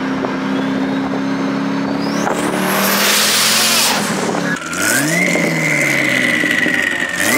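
Twin-turbocharged C5 Corvette's 5.7-litre LS1 V8 accelerating hard, with a high whistle climbing in pitch above the engine note. The sound breaks off abruptly about four and a half seconds in and picks up again, rising in revs with a second climbing whistle near the end.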